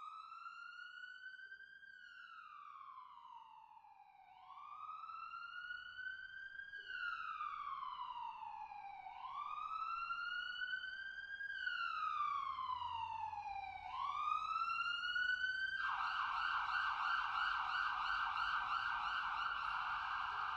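Emergency vehicle siren: a slow rising and falling wail repeating about every five seconds and growing louder, then switching to a fast yelp about sixteen seconds in.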